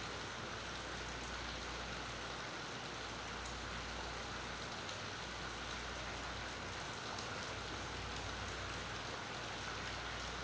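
Steady rain falling, an even hiss with a few faint drop ticks and a low rumble underneath, picked up by a phone's onboard microphone.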